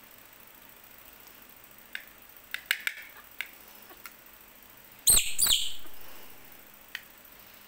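Baby macaque calling: a few short, high chirps, then two loud, high-pitched squeals about five seconds in that trail off.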